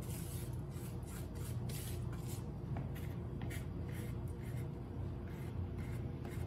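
A spatula scraping damp graham-cracker crumbs from a mixing bowl into a springform pan: repeated short, irregular scrapes and rubs over a steady low room hum.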